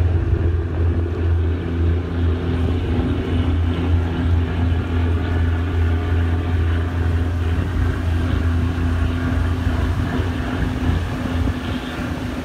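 A boat's engine running steadily: a loud, constant low hum with overtones above it.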